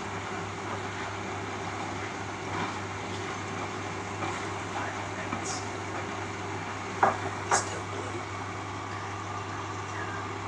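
Beko Eco Care WMA 1510 W washing machine running mid-cycle: a steady mechanical hum, with two short sharp clicks about seven seconds in.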